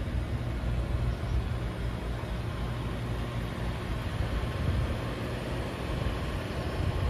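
BMW M760i's twin-turbo 6.6-litre V12 idling with a steady low rumble.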